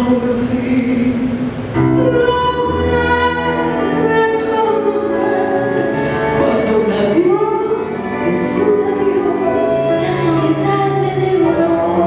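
A woman singing a tango into a microphone over instrumental accompaniment, her voice gliding and wavering on held notes.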